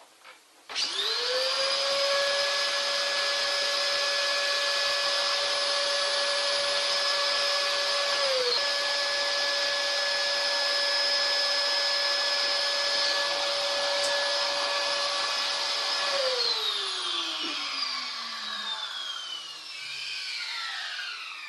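Vacuum cleaner switched on, its motor whine rising quickly to speed and running steadily with a brief dip about eight seconds in, then switched off, the whine falling in pitch as the motor winds down over the last few seconds.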